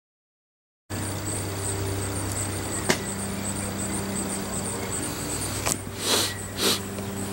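Outdoor ambience that starts about a second in: a steady low hum with a faint, rapidly repeating high chirp, a few sharp clicks, and two short whooshes close together near the end.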